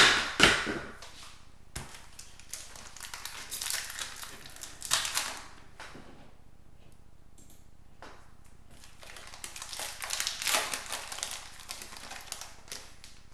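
Hockey card pack wrappers being torn open and crinkled by hand, in several bursts of rustling with a quieter lull in the middle.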